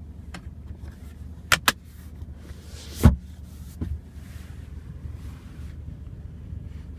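Plastic clicks and a knock from a car's rear armrest storage compartment and cup holders being worked by hand: two sharp clicks about a second and a half in, a heavier thump at about three seconds and a lighter click near four seconds, over a steady low hum in the cabin.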